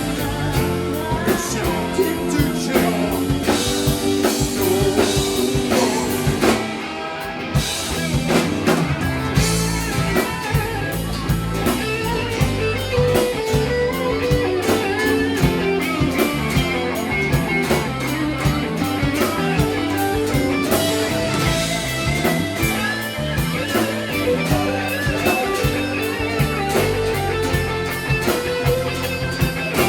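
Rock band playing a ballad live, in an instrumental passage with no vocals: guitar carrying the melody over drum kit and bass. About seven seconds in the cymbals and drums thin out briefly before the full band comes back in.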